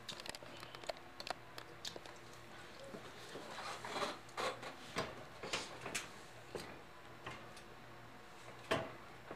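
Irregular light clicks and knocks, a few a second, with a louder knock near the end, from a home weight bench and its leg-extension attachment being handled and settled into.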